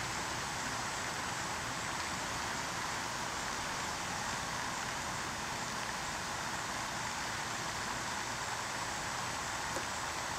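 Steady rushing hiss of water splashing along the shoreline, an even wash of sound that does not change.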